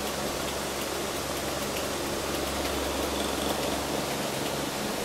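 Steady static hiss with a low hum from a police radio scanner's speaker between voice transmissions.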